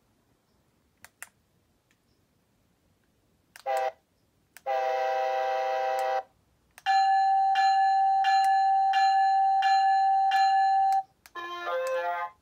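Electronic sound effects from an Acela model train's built-in speaker: two short synthesized horn-like tones, then a long steady tone with a chime repeating about twice a second for about four seconds, then a shorter tone near the end.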